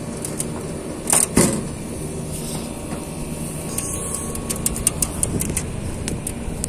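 Air-conditioner outdoor units running with a steady mechanical hum of compressors and condenser fans. Two knocks come about a second in, and a run of light clicks comes near the end.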